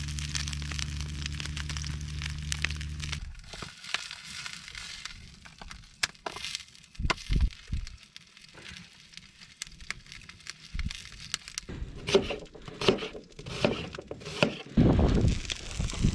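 Split-log Swedish stove fire burning under a frying pan, with sharp cracks and pops from the burning wood. A steady low hum stops about three seconds in, and the last few seconds bring louder knocks and low rumbling bumps.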